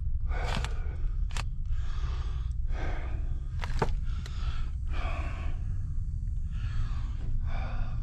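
Heavy breathing and scuffing of a man crawling over rocky ground in a crawlspace, with puffs of breath about once a second and a few sharp knocks and scrapes.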